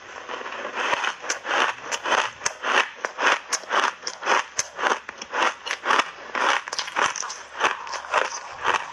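Ice chunks coated in matcha powder crunched between the teeth in big bites: a steady run of sharp crunches, about three or four a second.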